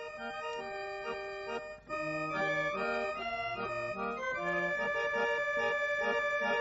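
Episode-closing music of a radio drama: held chords that change every second or so, growing louder about two seconds in.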